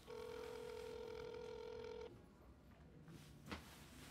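Ringback tone of an outgoing phone call, played from a mobile phone's speaker: one steady tone lasting about two seconds, a pause of about two seconds, then the tone starts again at the end. A short click comes about three and a half seconds in.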